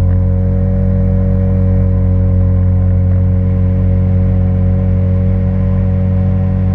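Engine running at a steady speed, a constant hum holding one pitch.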